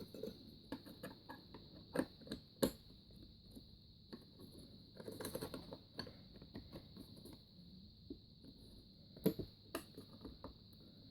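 Small clicks, taps and knocks of metal and plastic parts being handled as the metal bracket is fitted back inside a drip coffee maker, with two sharper knocks, one about a quarter of the way in and one near the end, and a stretch of rustling handling in the middle. A faint steady high-pitched hiss runs underneath.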